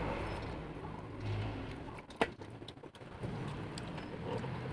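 Quiet eating sounds as spicy instant noodles are forked up and chewed, with one sharp click of a fork against the plate about two seconds in, over a low steady hum.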